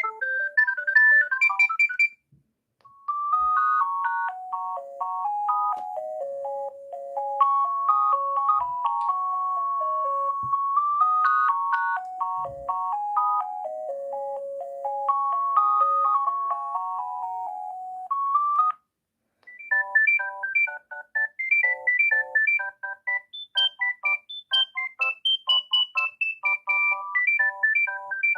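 Alcatel OT-153 mobile phone playing its built-in ringtones one after another, as electronic beeping melodies. The end of one tune gives way, after a short pause, to a melody played one note at a time for about fifteen seconds. After another short pause a faster, choppier tune begins.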